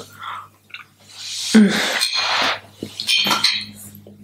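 Bone broth being sipped from a metal spoon: a soft slurp, then a long loud breathy sound about a second in, and a light clink of the spoon against the bowl about three seconds in.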